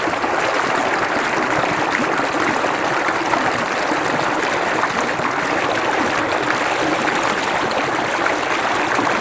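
Small stream running steadily over stones: an even, continuous sound of flowing water.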